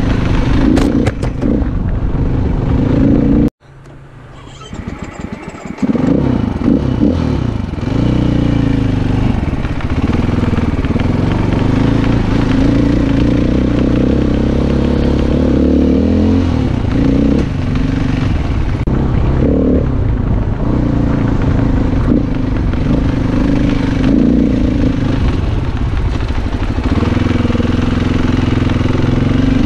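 Dirt bike engine running under changing throttle, its pitch rising and falling as the bike rides along. About three and a half seconds in, the sound cuts out abruptly and comes back over the next two seconds.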